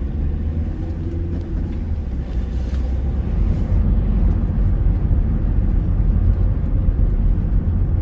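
Van engine and road noise heard from inside the cab while driving: a steady low rumble that grows a little louder about three and a half seconds in.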